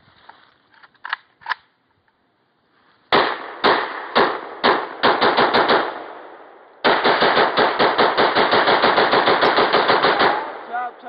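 AK-pattern rifle firing outdoors. A few single shots about half a second apart begin about three seconds in, then a quicker run. After a short pause comes a long rapid string of roughly eight to nine shots a second lasting about three and a half seconds.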